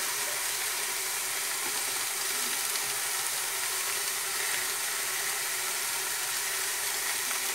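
Meat, bacon and cassava chunks sizzling in an aluminium pressure cooker on the stove: a steady, even hiss.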